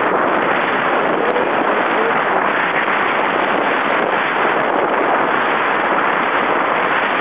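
Steady loud rush of strong wind and water around a small sailboat sailing close-hauled at about five knots through choppy water.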